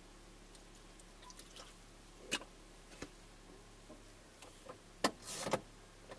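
Faint, quiet vehicle cab: a few scattered sharp clicks and taps at irregular times and a short rustle about five seconds in, over a low steady hum.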